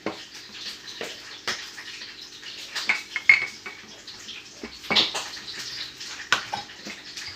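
Kitchen utensils clinking and knocking on a work surface while dough is cut into rounds, a handful of sharp taps over a faint steady hum.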